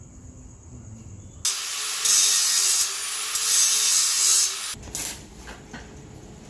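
Handheld angle grinder grinding on steel motorcycle sprockets. It comes in about one and a half seconds in, runs for about three seconds with two louder stretches, and cuts off.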